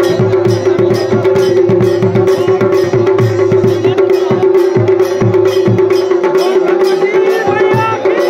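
Folk drums, a large dhol struck with a stick alongside a small damau, beating a quick steady rhythm over a continuous held droning note.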